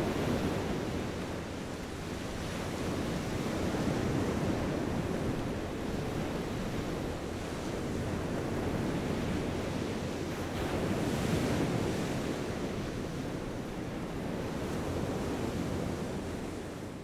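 Ocean surf: a steady rush of waves washing in, swelling and ebbing slowly, loudest about eleven seconds in.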